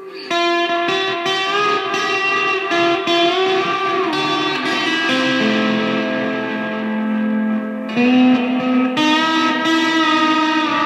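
Electric guitar music: a slow melody of held notes with smooth sliding pitch bends over sustained chords, coming in louder just after the start and changing chord about eight seconds in.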